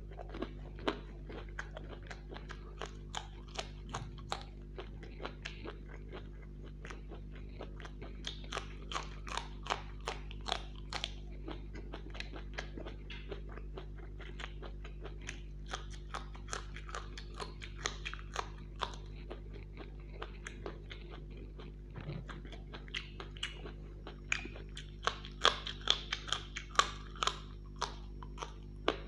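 Close-up mouth sounds of a person eating raw green chillies and fried pakoras: crisp bites and wet chewing in a quick, irregular string of crunches. The crunching grows loudest near the end, over a steady low hum.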